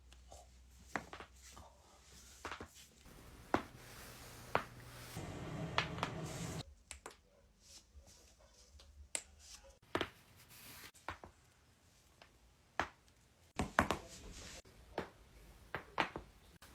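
A string of sharp, separate clicks and pops at irregular intervals, the sound of joints being cracked. There is a few seconds of steady noise about a third of the way in.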